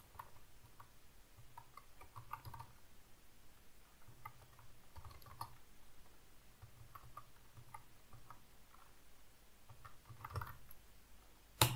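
Computer keyboard being typed on slowly, in short irregular clusters of faint key clicks as a terminal command is typed out, with one louder key strike near the end.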